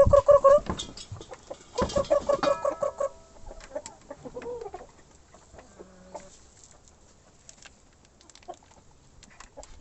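Chickens clucking in quick runs of repeated calls, loudest in the first three seconds, then quieter with scattered small clicks.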